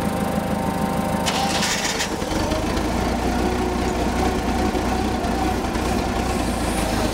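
Forklift engine running steadily, its low rumble growing stronger about two seconds in, with a short hiss a little over a second in.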